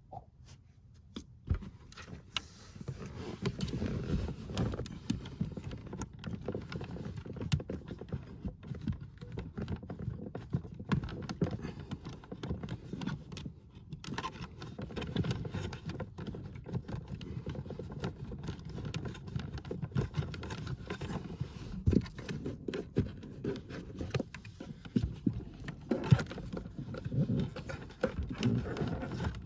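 Speaker cables being fed along under the car's interior trim and carpet: continuous rustling and scraping with many small clicks and knocks, pausing briefly about halfway through.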